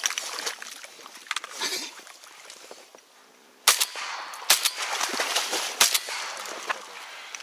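Three shotgun shots at a duck flying overhead, the first about three and a half seconds in and the next two coming quickly after it, each followed by a short echo. The first shot is the loudest.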